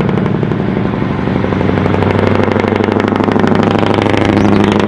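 An engine or motor running steadily with a rapid, even pulse.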